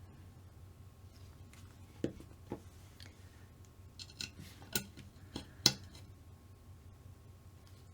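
A handful of light, separate clicks and taps of small tools and kit parts being handled during hobby-kit assembly, the sharpest about three quarters of the way in.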